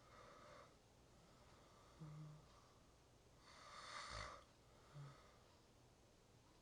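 A person snoring quietly in slow, regular breaths: a breathy snore about every four seconds, the second one louder and ending in a low rattle, with a short low grunt between snores.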